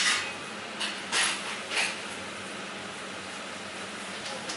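Steady background hiss of a small room, with three short rustling or scraping noises in the first two seconds.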